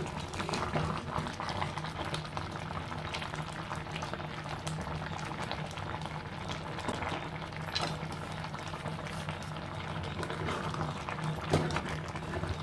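Thick mixed-fruit jam boiling vigorously in a clay pot, with thick bubbles popping and plopping continuously. A wooden spatula stirs and scrapes through it at the start and near the end, with one sharper knock against the pot shortly before the end.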